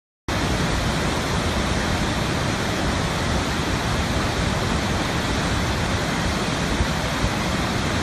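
Steady rush of a large waterfall's white water, starting suddenly just after the start and holding even throughout.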